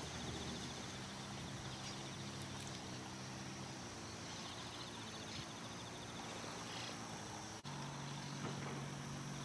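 Faint outdoor ambience: insects chirping in a fine high trill that comes and goes, over a low steady hum. A brief dropout about three quarters of the way through.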